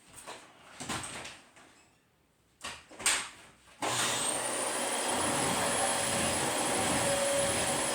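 A few knocks and handling noises, then about four seconds in the Dyson DC25 Animal upright vacuum switches on: its motor whine rises quickly to a steady high pitch over a loud rush of air, and it keeps running.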